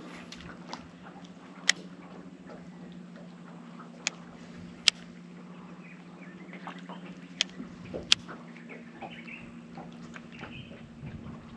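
Steady low hum of an electric trolling motor holding the boat, with about five sharp, separate clicks scattered through.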